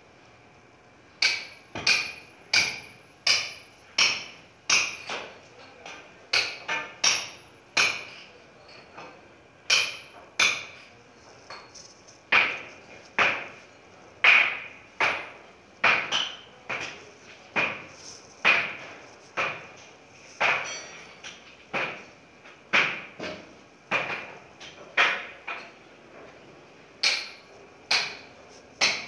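Repeated sharp metallic clanks, each with a short ringing tail, about one and a half a second with a few brief pauses, starting about a second in.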